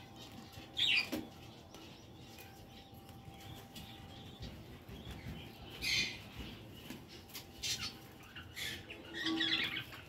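Caged budgerigars chirping in short, separate calls, the loudest about a second in and a longer flurry near the end.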